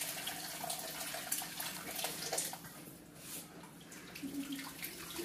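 Boiling water poured from an electric kettle into a cast iron wok and then into a cast iron frying pan, splashing steadily into the pans to soak off the cooking residue.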